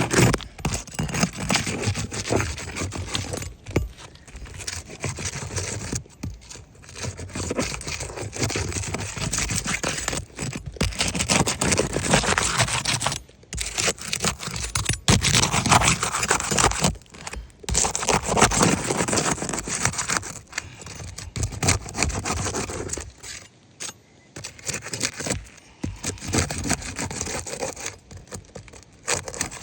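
Roof snake shingle tool scraping and grating as it is worked under asphalt shingles, in irregular strokes with short pauses, quieter for a few seconds near the end.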